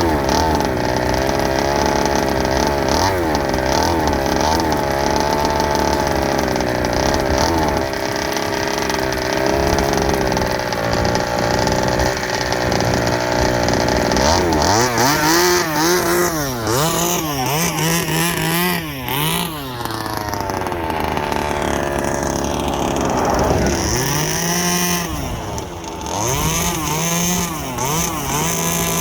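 Rovan Baja 32cc gasoline RC car's two-stroke engine running, its pitch rising and falling again and again as the throttle is opened and closed.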